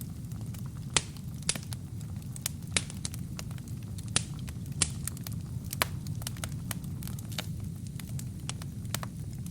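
Wood fire burning in a fireplace: a steady low rumble of flames with sharp, irregular crackles and pops from the burning wood and kindling.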